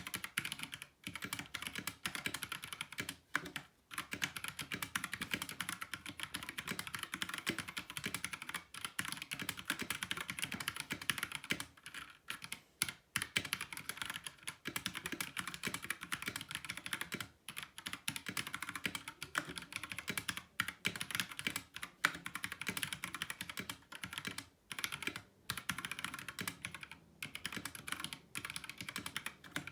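Steady typing on a Mecharite Apex True RGB 60% mechanical keyboard with Kailh linear red switches: a dense, fast stream of keystroke clacks, broken by a few short pauses.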